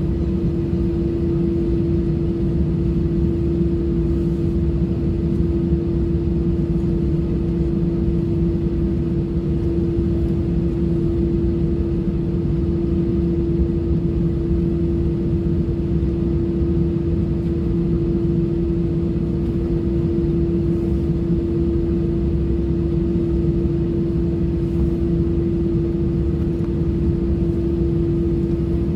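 Cabin noise of an Airbus A320-family airliner taxiing: a steady hum of the jet engines at idle, with a constant mid-pitched tone over a low rumble.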